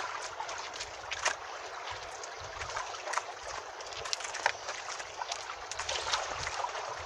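Water sloshing and splashing around a small outrigger fishing boat, a steady wash with many small clicks and ticks scattered through it.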